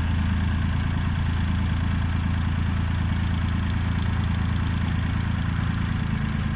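Road roller's diesel engine running steadily with a low, even drone.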